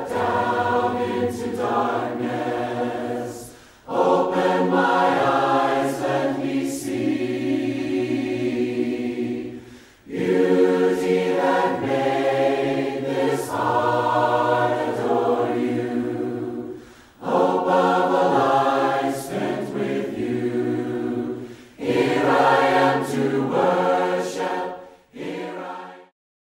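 A group of voices singing a hymn a cappella in parts, in long phrases with short breaks between them; the singing ends near the close.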